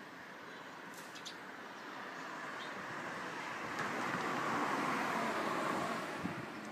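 A road vehicle passing by: its tyre and engine noise swells from about two seconds in, is loudest around the middle, and fades away near the end. A few faint bird chirps come about a second in.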